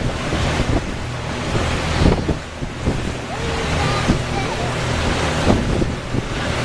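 Water splashing and rushing, with wind buffeting the microphone in repeated gusts.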